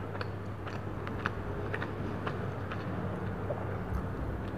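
Close-miked chewing of a cream-filled donut: irregular wet mouth clicks, roughly two a second, over a steady low hum.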